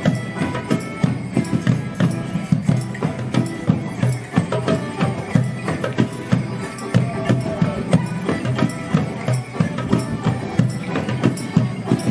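Live morris band playing a folk dance tune on melodeons and banjo with a drum, keeping a steady beat of sharp knocks.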